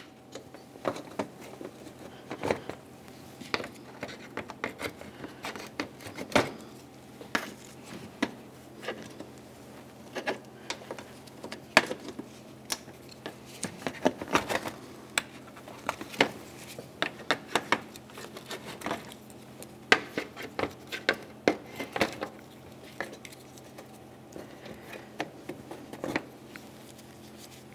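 Irregular sharp plastic clicks and taps as push clips on a Chevy Tahoe's top trim panel are pried up and popped loose with a small trim tool, one clip after another.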